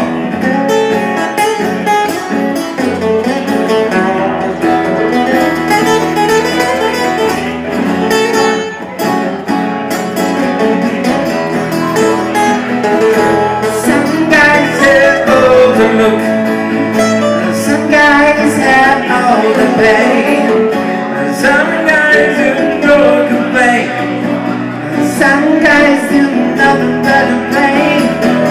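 Live acoustic pop song: two acoustic guitars strummed and picked, with a man singing.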